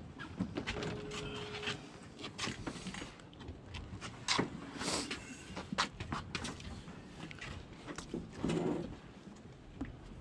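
Footsteps and gear knocking and scraping on a boat's deck as anglers come aboard carrying rods and bags: irregular clunks and shuffles, with a brief steady tone about a second in.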